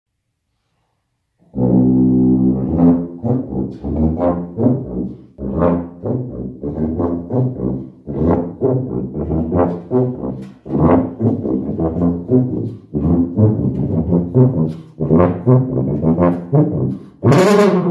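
Sousaphone played live: a run of many short notes in a lively tune, ending on a loud, brassy held note. It starts after about a second and a half of silence.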